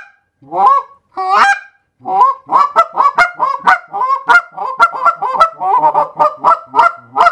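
Canada goose call, a Big Kahuna with hand broken-in, rubber-inlaid guts, blown by hand: two single honks, then from about two seconds in a fast run of short clucks and honks, about four a second. Its broken-in guts are meant to give goosier, hollower, lower tones.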